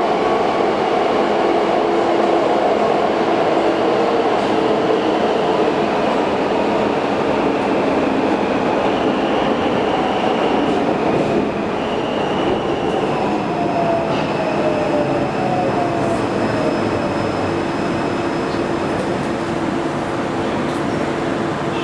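Alstom Metropolis metro train heard from inside the car, running steadily with a rumble of wheels on rail and high electric motor whines. About halfway through, a motor tone glides down in pitch and the noise eases as the train slows into a station.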